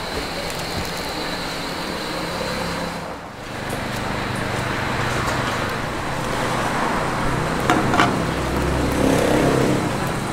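Steady street ambience with traffic noise, dipping briefly about three seconds in, with a couple of sharp clinks about eight seconds in.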